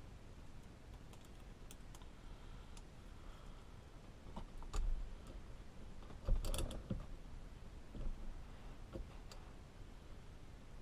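Scattered light clicks and taps of small metal parts and screws being handled and fitted on a steering wheel hub, with a louder cluster of clatter about six and a half seconds in.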